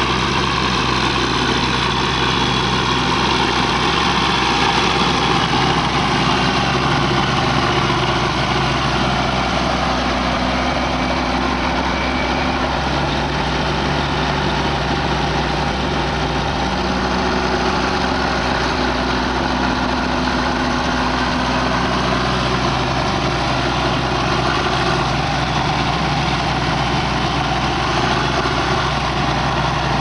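Large diesel engine of farm machinery running steadily at an even speed, its pitch shifting slightly now and then.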